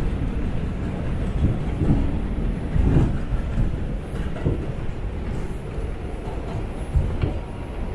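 New York City subway train running on the rails, heard from inside the car: a steady low rumble with irregular knocks and clatter from wheels and track, loudest about three seconds in.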